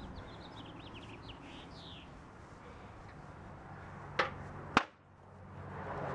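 Two sharp smacks about half a second apart, the second louder, as a wrestler is hit with a flat sheet-like prop. Faint bird chirps in the first two seconds.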